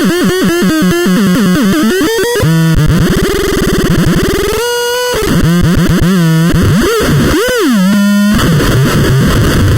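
Electronic synthesizer making harsh, distorted pitched tones: a fast warbling wobble in pitch, a slower swooping tone about three seconds in, a short held higher tone near five seconds, then a rising-and-falling sweep and a low steady buzz near the end.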